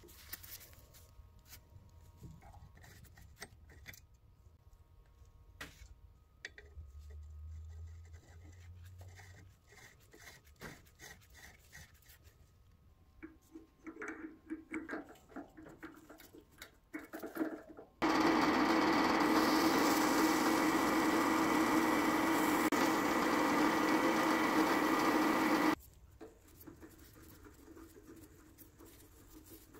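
Light clicks and handling of small metal parts, then a drill press motor running steadily for about eight seconds, starting and stopping abruptly.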